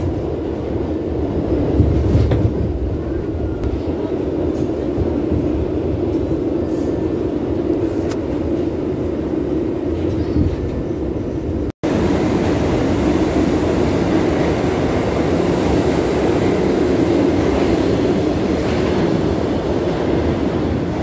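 New York City subway car running on the tracks, a steady rumble heard from inside the car. The sound cuts out completely for a split second about halfway through and comes back slightly louder.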